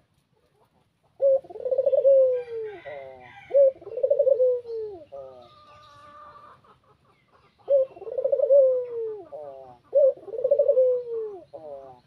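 Barbary dove (ringneck dove, burung puter) cooing: four rolling coos, each dropping in pitch at its end, in two pairs with a pause of about three seconds between them, beginning about a second in.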